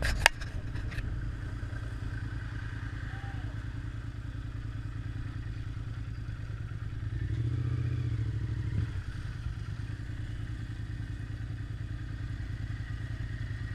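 Motorcycle engine running at a low, steady idle as the bike rolls to a stop at the roadside. A sharp knock comes just after the start, and the engine note swells briefly about seven seconds in.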